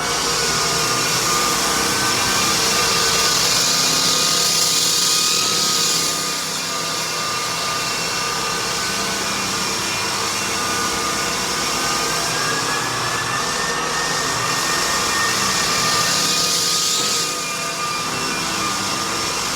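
Electric floor-refinishing machine running steadily with a thin motor whine, its hiss swelling louder during the first several seconds and again briefly near the end.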